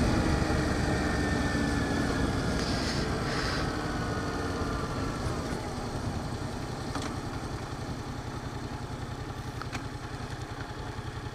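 Yamaha FZ-07's parallel-twin engine winding down as the bike slows, its pitch falling, then settling into a steady, evenly pulsing idle.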